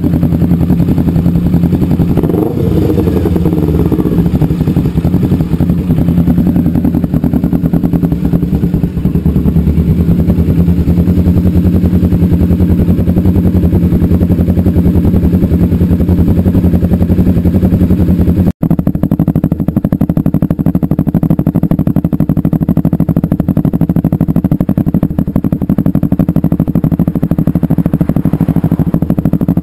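Kawasaki Ninja 250R parallel-twin engine idling steadily with its exhaust note. The engine is briefly blipped about two seconds in. There is a sudden break a little past halfway, after which the idle carries on with a slightly different tone.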